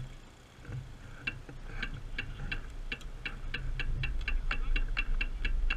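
Bicycle rear freehub ticking steadily as the bike coasts slowly, about five clicks a second, over a low rumble of the tyres on the road.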